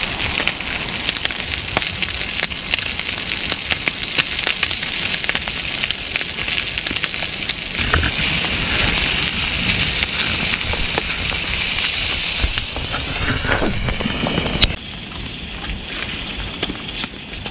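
Small wood fire crackling in a Hive stove (the Honey stove extension), with sausages sizzling in a pan on top in a steady hiss. The hiss grows stronger about halfway through, then drops away sharply near the end to a quieter background.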